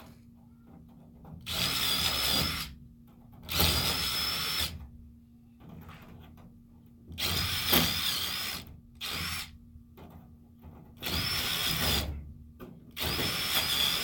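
Power tool run in six short bursts of about a second each, with a high whine in each burst.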